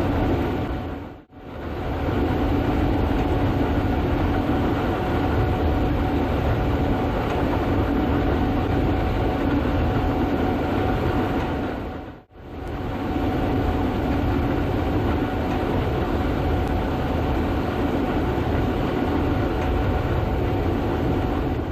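Gleaner S98 combine harvester running steadily under load while harvesting soybeans, a dense machine drone with a few steady whining tones. The sound dips out briefly about a second in and again about halfway through.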